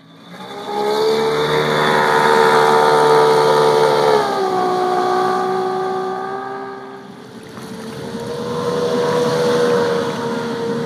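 A 150 hp Evinrude E-Tec two-stroke outboard motor running at speed on a boat, its pitch stepping down about four seconds in. The sound fades briefly a little past halfway, then builds again as the boat comes by.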